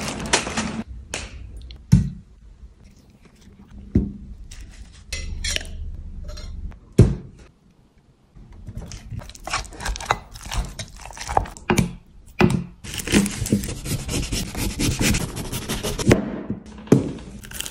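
A cleaver chopping red onion on a wooden cutting board: a few single knocks at first, then quick runs of chops in the second half.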